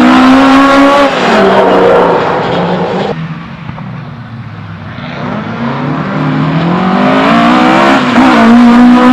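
Classic rally car engines revving hard under acceleration, the pitch climbing and dropping with the gear changes. The sound drops away abruptly about three seconds in, then an engine builds again to a loud, rising rev near the end.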